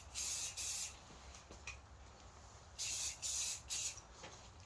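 Aerosol can of Crep Protect water- and stain-repellent spray hissing in short bursts onto new sneakers: two quick sprays at the start, then three more about three seconds in.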